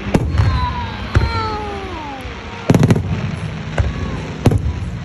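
Fireworks display: aerial shells bursting with sharp bangs, about five in a few seconds with a quick cluster in the middle, over a rolling low rumble. Smooth falling whistle-like tones sound through the first two seconds.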